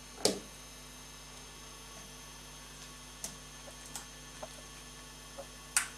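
Sharp clicks and small knocks from a plug-in power adapter being handled and pushed into a wall socket: one loud click just after the start, a few light ticks, and another loud click near the end, over a steady electrical hum.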